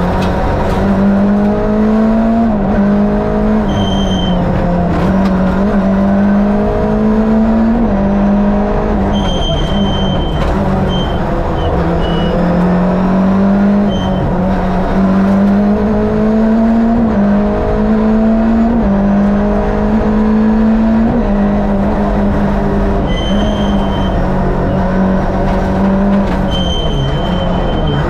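Fiat 2-litre twin-cam eight-valve four-cylinder engine of a Lada VFTS rally prototype, heard from inside the car at full attack. The engine revs climb hard and drop back at each gear change, again and again. Brief high squeals come through now and then.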